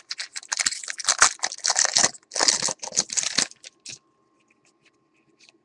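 Crinkling and tearing of a football trading-card pack's wrapper as it is opened by hand, in a run of quick bursts that stops about four seconds in.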